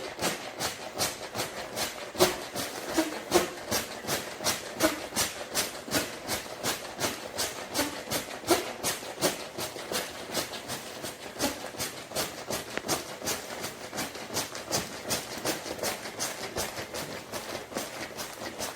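Built-in pump of an inflatable sleeping pad being worked in quick regular strokes, about three a second, each one a short puff of air hissing into the pad.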